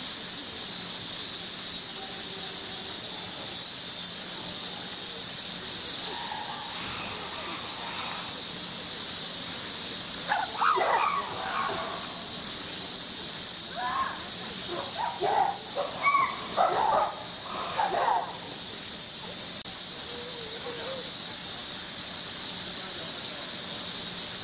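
Steady, high-pitched droning chorus of summer cicadas. A few short snatches of voices cut in around the middle.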